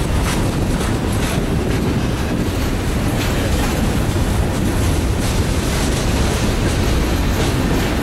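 Freight train rolling past: a loud, steady rumble of steel wheels on the rails, with occasional faint clicks.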